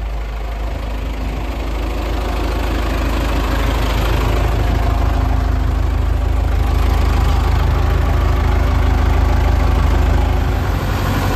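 Allis-Chalmers farm tractor engine running with a corn picker in tow, growing louder over the first several seconds as it pulls away and then holding steady, with the clatter of the picker machinery behind it.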